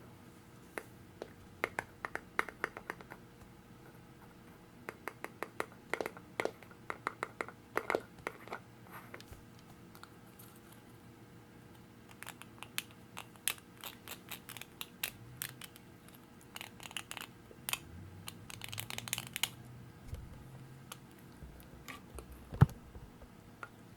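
Quick taps on plastic bottles and bottle caps, in bursts of rapid clicks with pauses between. A short stretch of scratchy rustling comes about two-thirds of the way through, and a single louder tap comes near the end.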